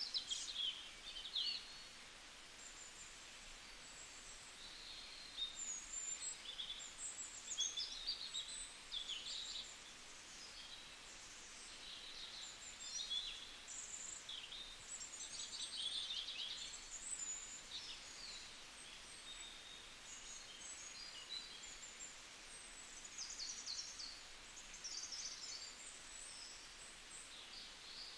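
Birds chirping, many short high calls coming and going over a steady background hiss.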